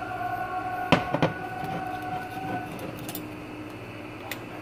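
A steady hum with two sharp knocks about a second in and lighter clicks later, from a glass bottle of white cooking wine being handled and set on a glass-ceramic cooktop.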